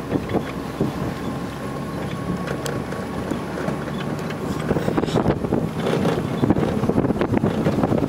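A vehicle driving along a bumpy dirt track: engine running under a steady rumble, with rattles and knocks from the rough ground and wind buffeting the microphone. It gets louder and rougher about halfway through.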